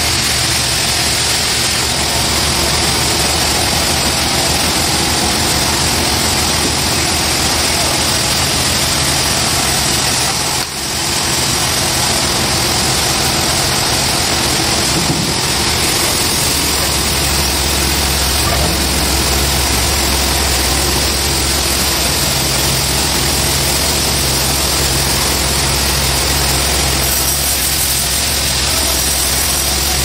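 Band sawmill running steadily, a continuous mechanical din of the saw and its engine while trembesi (rain tree) slabs are fed through it, with a brief dip about ten seconds in.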